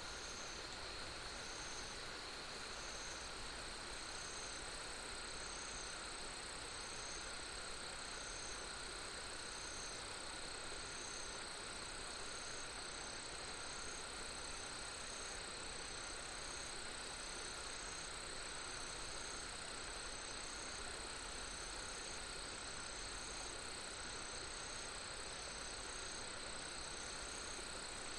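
Insects calling in chorus: steady high-pitched trills with a short, evenly repeated chirp a little less than once a second, over a steady hiss.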